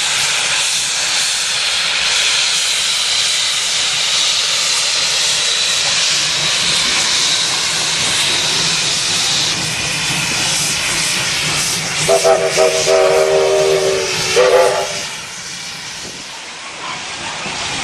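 Double-headed R class steam locomotives pulling away, with a steady loud hiss of steam. Late on, a steam whistle sounds for nearly three seconds.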